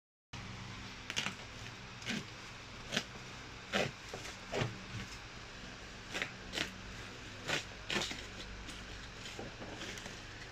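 Plastic parcel wrapping being torn and cut open: cling film, a plastic mailer and bubble wrap crinkling and crackling in about a dozen short, irregular rustles.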